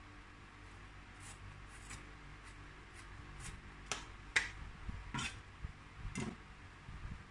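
Chef's knife peeling the ridges off a silk squash (angled luffa): a run of short, crisp scraping strokes, about two a second at first and sparser towards the end, with the blade now and then knocking on a plastic cutting board. The loudest stroke comes about four and a half seconds in.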